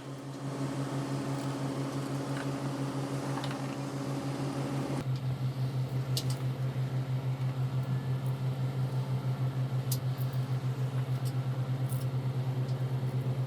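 A machine motor or engine running steadily, a low drone with a fast, even pulse. About five seconds in it shifts slightly lower and gets louder, with a few faint short ticks on top.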